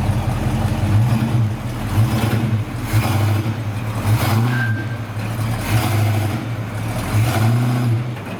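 1970 Buick Wildcat's V8 running on a newly fitted, not-yet-adjusted Quadrajet carburetor, blipped about five times so the revs rise and fall between idle and a higher speed.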